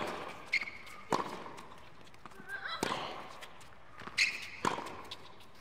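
Tennis rally on a hard court: the ball struck back and forth with racquets, a sharp pop on each hit and bounce, spaced a second or more apart. Short high-pitched sounds come with some of the hits.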